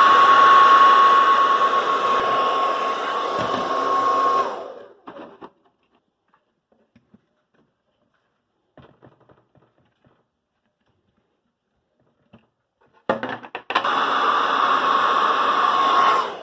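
Hand-held hair dryer running with a steady high whine, switched off about four and a half seconds in. After a quiet stretch with a few faint clicks and taps, it is switched on again about thirteen seconds in and runs for about three seconds before cutting off near the end.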